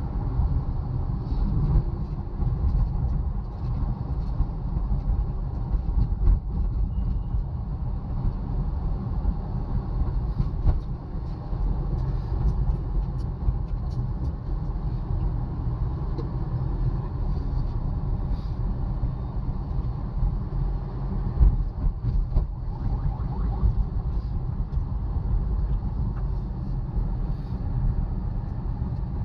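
Steady low rumble of vehicles in road traffic, with a few faint knocks on top.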